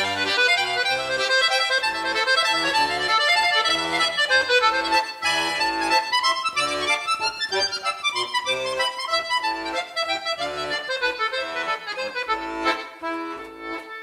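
Instrumental interlude played by a single instrument: a melody over a rhythmic bass-and-chord accompaniment, growing quieter near the end.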